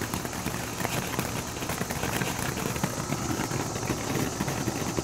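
Ground fountain firework spraying sparks: a steady hiss thick with rapid crackling.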